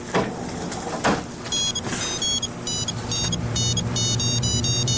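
Mobile phone ringtone playing a quick melody of short electronic beeping notes, starting about a second and a half in, over a low steady hum. Two sharp knocks come in the first second.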